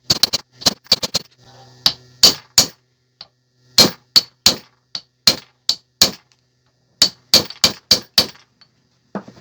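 Hammer blows driving a steel pinion-gear pin (spider shaft) into a Mercedes W123 rear differential case: about twenty sharp, ringing metal-on-metal strikes in irregular runs with short pauses. The pin is a tight fit.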